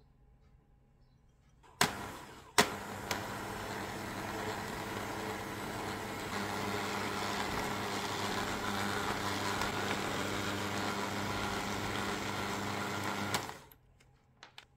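Electric hand mixer beating butter and powdered sugar in a glass bowl: a steady motor whir that starts just after two sharp clicks about two seconds in and cuts off about a second before the end.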